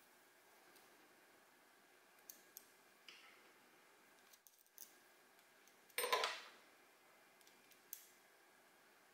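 Small metal engine parts clicking and clinking as they are handled and fitted together, with a few light ticks and one louder, longer clatter about six seconds in.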